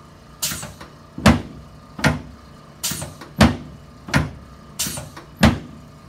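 The drop pieces of a chiropractic drop table slam down under the chiropractor's thrusts on the lower back: about eight sharp knocks, roughly one every 0.7 seconds. The table's own noise drowns out any joint cavitations.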